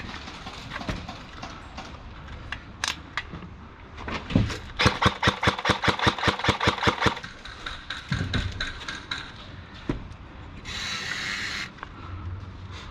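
Airsoft gun firing: a few single shots, then about five seconds in a quick string of shots at roughly six a second for a little over two seconds. A short hiss follows near the end.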